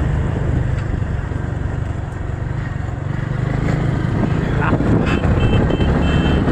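Motorcycle engine running steadily while riding, with short, high repeated tones in the last second or so.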